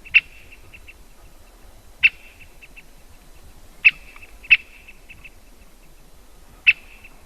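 Great spotted woodpecker giving single sharp "kik" calls, five of them at uneven intervals of roughly one to two seconds, each followed by a few fainter short ticks.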